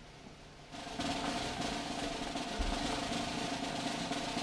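Drum roll for the winner announcement, starting about a second in and held at an even level.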